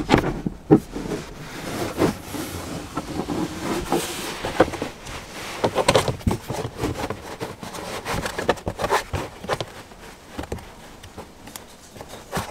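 Irregular knocks, scuffs and rustling of a moulded floor mat being handled and pushed into place in a car's footwell.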